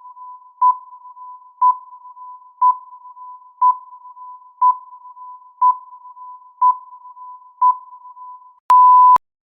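Electronic countdown timer sound effect: a short beep at one pitch once a second, eight times, with a faint steady tone between the beeps. Near the end a single longer, louder beep at the same pitch sounds, marking the time running out.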